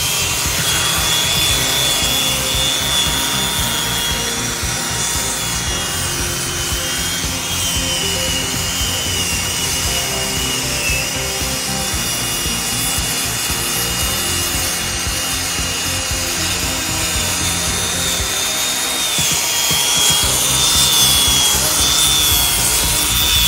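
Arbortech Mini Grinder running with a sanding head pressed against a wooden inlay, sanding down the raised overwood. Its motor gives a steady high whine that wavers a little in pitch as the head is worked over the wood, over a continuous rasping hiss.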